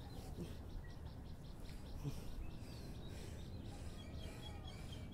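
Birds chirping over a steady low background rumble, with a quick run of short, high chirps in the second half.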